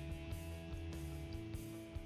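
Soft background music with a steady beat and sustained notes over a stepping bass line.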